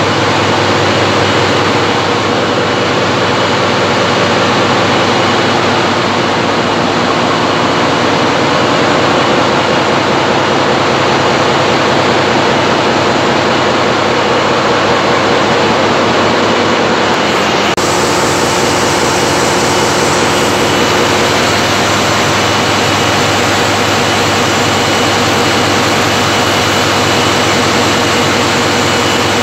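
Loud, steady drone of large engines running in an engine room: a dense mechanical hum with a constant low throb and a hiss above it. The sound turns brighter a little over halfway through.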